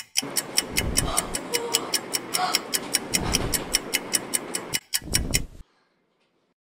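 Fast clock-ticking sound effect, about five even ticks a second over a fuller background layer, cutting off suddenly about five and a half seconds in.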